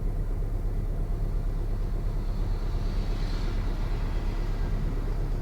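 2003 Toyota Corolla engine idling steadily, a low even rumble with a light regular pulse.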